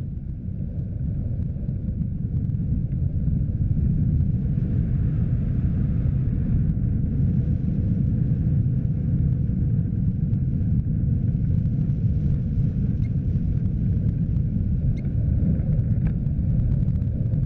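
Wind rushing over the microphone of a camera mounted on a hang glider in flight: a steady low rumble that grows louder over the first few seconds, then holds.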